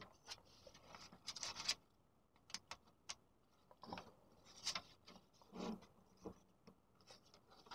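Faint, intermittent rustling and crinkling of a paper banknote being handled and pushed against a smartphone's screen edge, with a few small clicks of fingers on the phone.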